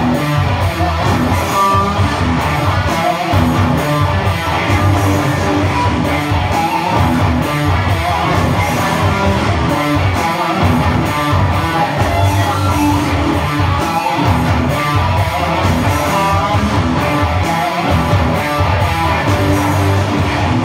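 Instrumental music led by an electric guitar playing lines and strummed chords over a low bass part and a steady beat.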